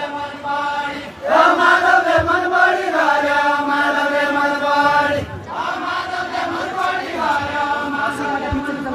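A group of men singing a Deuda folk song together in long, drawn-out chanted phrases; one phrase ends about a second in, a new one starts right after, and another begins a little past the middle.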